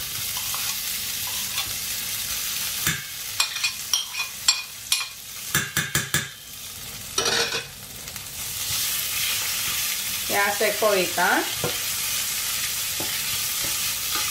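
Boiled potato pieces sizzling in hot oil in a stainless steel frying pan, a steady frying hiss throughout. From about three to seven seconds a spoon knocks and scrapes against the pan and plate as the potato is tipped in and stirred, and a brief squeaking comes about ten seconds in.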